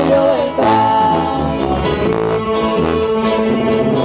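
A live sierreño-style band plays: a sousaphone bass line under strummed and picked twelve-string acoustic guitars, with a singer holding long notes.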